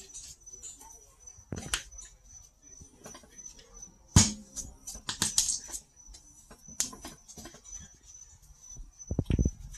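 Small walnut inlay pieces clicking and knocking against a maple blank as they are handled and pressed into carved pockets: irregular light clicks, a sharp knock about four seconds in, and a few duller thumps near the end. A faint steady high whine sits underneath.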